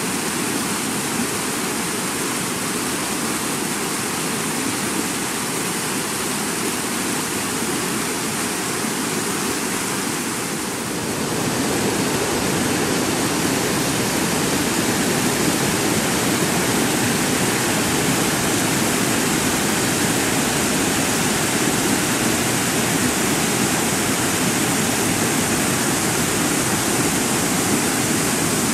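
Muddy flash-flood water rushing down a dry wash and tumbling over rocks, a loud, steady rush of churning water. About eleven seconds in it grows louder and deeper.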